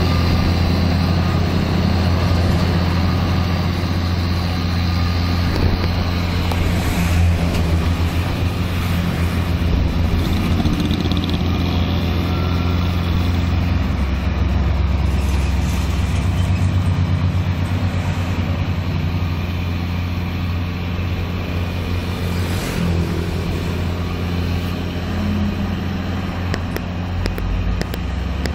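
Farm tractor engine running steadily under load with a deep, even hum as it pulls a bund-forming implement through wet paddy-field mud.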